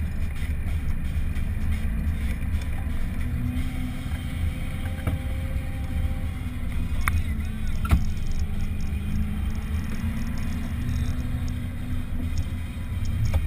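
JCB Fastrac 1135 tractor's diesel engine running as the tractor drives along, a steady low rumble. A single sharp knock comes about eight seconds in.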